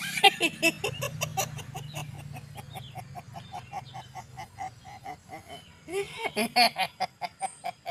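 A man's rapid, staccato cackling laugh, about five short pulses a second, performed as a mock spirit possession; it grows louder about six seconds in.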